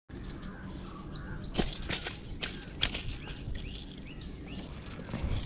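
Outdoor riverside ambience: small birds chirping in many short repeated calls over a low steady rumble, with a few sharp clicks or knocks between about one and a half and three seconds in.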